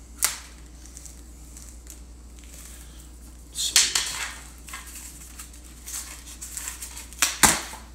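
Handling noise from packaging being worked by hand: three short bouts of rustling and rubbing, one just after the start, one around the middle and the loudest near the end, over a low steady hum.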